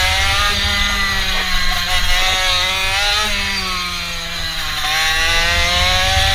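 Mini bike's small engine running under way, its pitch rising and falling a few times as the throttle is worked, with wind rumbling on the microphone.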